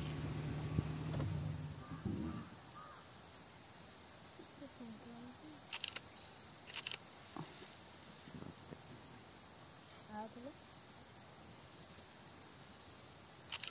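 Insects chirring steadily as a constant high-pitched drone in two pitches. A low steady hum underneath stops about two seconds in.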